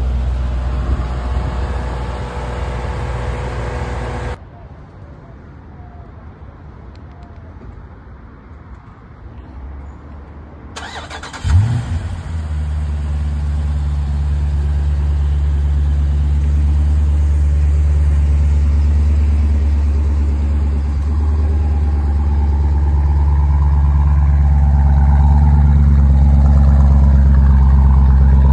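An engine runs loudly for the first four seconds, then the sound cuts away to a quieter stretch. About eleven seconds in, a Jeep Grand Cherokee SRT's 6.4-litre HEMI V8 is cold-started with a sharp flare as it fires. It then settles into a loud, deep idle that grows a little louder toward the end.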